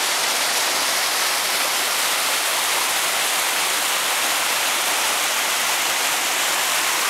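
Steady, loud rushing of running water, unbroken and even throughout.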